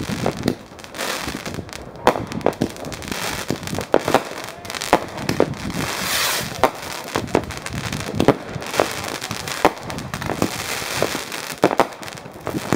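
Fireworks going off: an irregular run of sharp bangs and crackles from rockets and firecrackers, about one or two a second. About halfway through there is a hissing rush.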